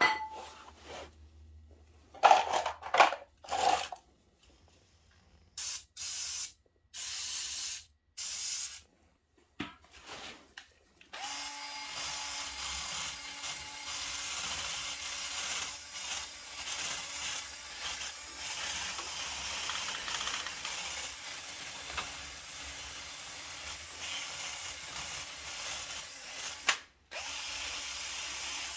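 Cordless power drill running steadily for about fifteen seconds, held against the hub of an ATV's front drum brake. It is preceded by scattered metal clanks and a few short hissing bursts.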